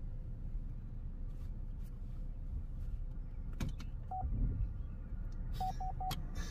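Car interior: the low rumble of the vehicle running, a click about three and a half seconds in, then a single short electronic beep and, near the end, three quick beeps.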